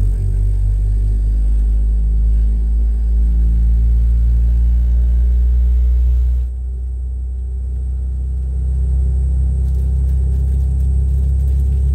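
Rolls-Royce BR715 turbofan of a Boeing 717-200 spooling up during engine start, heard from inside the cabin: a loud, heavy rumble with droning tones that shift in pitch. About six and a half seconds in, the hiss above the rumble cuts off suddenly and the level dips, then builds again.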